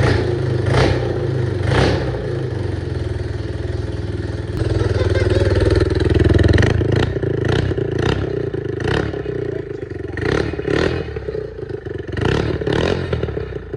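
Yamaha AG200's single-cylinder four-stroke engine running after a rebuild, on a new CDI that cured its intermittent spark. It is revved up for a couple of seconds about five seconds in, with sharp cracks every second or so.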